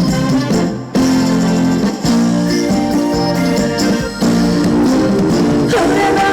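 Instrumental break of a trot song played loud through concert speakers, with sustained chords and short breaks about one, two and four seconds in.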